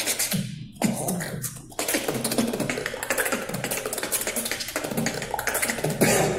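Solo vocal beatboxing: a fast, dense stream of mouth-made kick drums, snares and clicking hi-hats. Two short breaks come in the first two seconds, then the pattern runs on without a stop.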